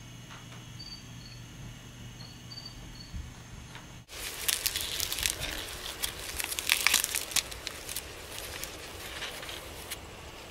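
Dry corn husk and silk crackling and rustling as they are handled and pulled at, starting suddenly about four seconds in and loudest in the middle. Before that, a steady low hum with faint high chirps.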